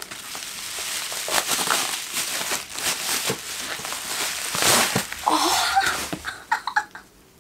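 Bubble wrap and plastic packaging crinkling and crackling as it is pulled off and handled, dying down near the end.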